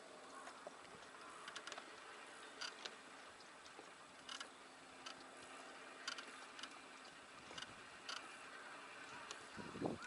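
Faint, irregular light clicks and taps over a steady low hiss, with a louder low sound just before the end.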